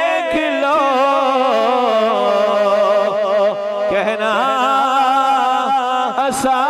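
A man sings a Punjabi naat into a microphone, drawing out long wordless notes that waver and bend in pitch. There is a short breathy hiss near the end.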